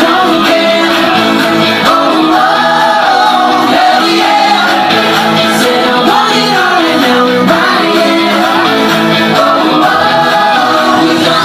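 Pop song performed live, with a singer's voice over the backing music, loud and steady throughout.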